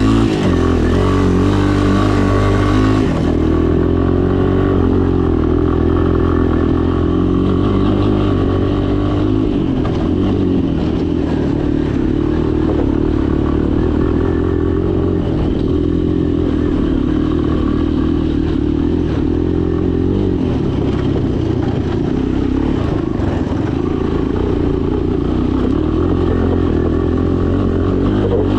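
Three-wheeler's small gasoline engine running steadily under way, its note wavering up and down with the throttle.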